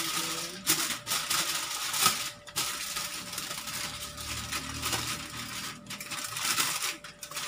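Aluminium foil crinkling and rustling in uneven surges as it is folded and pressed around a whole milkfish.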